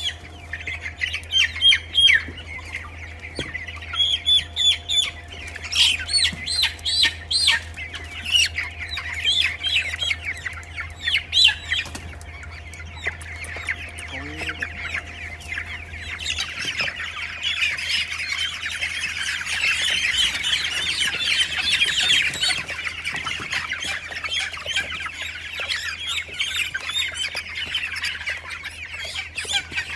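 Many newly hatched poultry chicks peeping: loud, scattered high cheeps in the first half, then a dense, continuous chorus of peeping from about halfway through. A steady low hum runs underneath.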